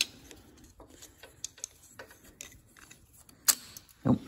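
Small metallic clicks and ticks of a screwdriver and hand tools working the choke cable bracket loose from the side of a motorcycle-type carburetor, with its small spring. There is a sharp click at the very start, a louder click a little past the middle, and a duller knock near the end.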